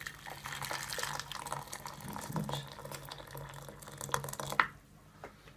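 Boiling water poured from an electric kettle into a small stainless steel saucepan of rinsed green tea leaves: a steady splashing pour that stops near the end.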